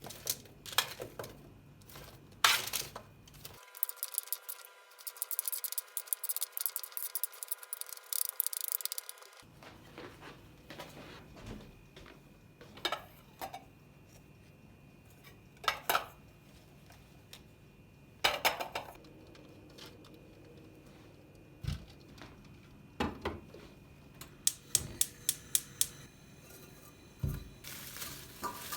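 Kitchen clatter: dishes and utensils being handled, with scattered clinks and knocks, a dense stretch of rapid clicking about four seconds in, and a quick run of taps near the end.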